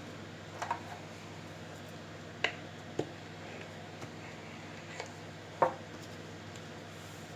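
A handful of short, sharp clicks and taps from kitchen handling, the loudest near the end, over a steady low hum.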